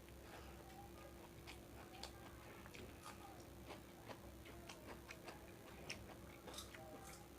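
Faint, irregular clicks of a person eating Schezwan veg fried rice: chewing and small mouth clicks, a few every second.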